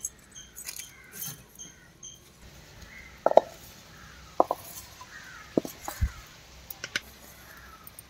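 Scattered light taps and clicks as fried tomatoes, garlic and chillies are tipped from a steel bowl into the pit of a granite grinding stone, with a couple of short ringing clinks from the bowl.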